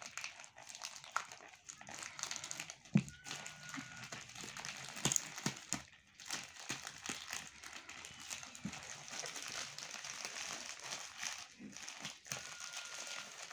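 Plastic courier mailer crinkling and rustling as it is slit open with a small cutter and handled. Scattered small clicks run through it, with a sharper tick about three seconds in.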